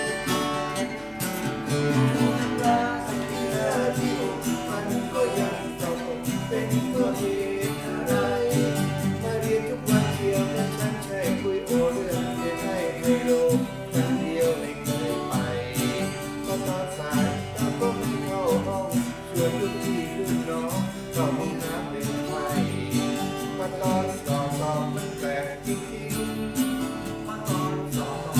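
Small acoustic band playing a Thai pop song: two strummed steel-string acoustic guitars over an Aria FEB-30M acoustic-electric bass guitar, with a melodica playing the melody at the start.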